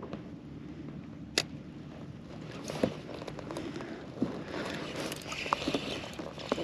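Spinning reel being cranked while reeling in a hooked fish, with scattered small clicks and knocks from handling the rod and reel. There is one sharp click about a second and a half in.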